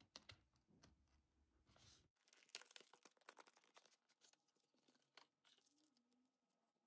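Faint close-up handling of a cardboard screen-protector box: a blade slitting its seal, then a run of small clicks, scrapes and crinkles as the plastic installation tray slides out of the sleeve.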